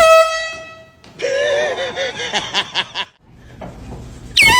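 An air horn blast fading out over about a second, then laughter with music, and a sudden loud voice near the end.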